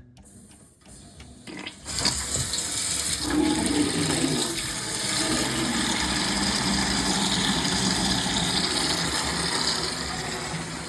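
Water gushing steadily out of an open washing-machine supply hose into a small trash can, starting about two seconds in as the water line is turned on. The line is being flushed to clear mud and debris that had clogged it.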